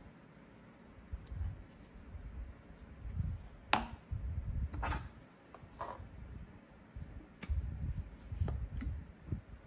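Handling noise of aluminium drink cans and license-plate koozies being fitted together and set on a steel table: scattered sharp taps and clinks, the clearest in the middle and near the end, over a low rumble of hands moving.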